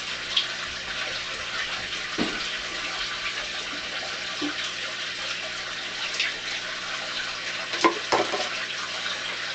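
Steady rush of running, splashing aquarium water, with a few soft knocks about two seconds in and near eight seconds in.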